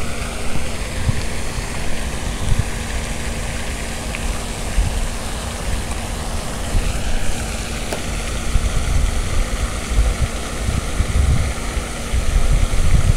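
Steady rush of water from a pond's spray fountain, with a steady low hum and uneven low rumbling underneath.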